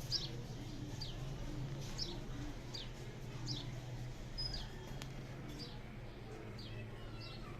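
Songbird chirping: short high notes that slide downward, repeated about once a second, over a steady low hum.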